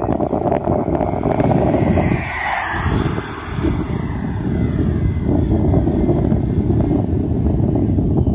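Stinger 90 radio-controlled jet's electric ducted fan whining in flight as it passes, its high whine dropping in pitch about two to three seconds in, over a steady low rumble of wind on the microphone.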